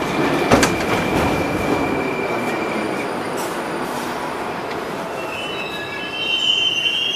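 Moscow Metro train noise in a station: loud rumble with a steady high tone, a sharp knock about half a second in, then fading. Near the end comes a high squeal typical of metro wheels or brakes.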